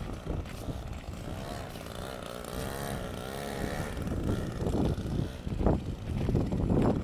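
Small strimmer engine driving a radio-controlled car, running with its pitch wavering up and down as the throttle changes, and louder, rougher bursts in the last couple of seconds.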